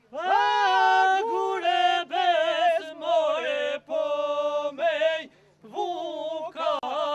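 Men singing a highland folk song of Malësia e Madhe in loud, high, ornamented phrases that slide between notes, broken by short pauses about four and five and a half seconds in.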